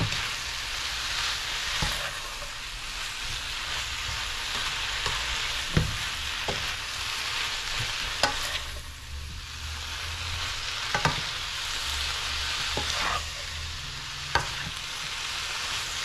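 Shredded cabbage, carrots and bell peppers sizzling in a hot frying pan as they are stirred and tossed with a spoon, the spoon knocking against the pan now and then.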